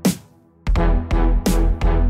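Electronic music with heavy bass beats. The beat drops out briefly just after the start, then comes back in.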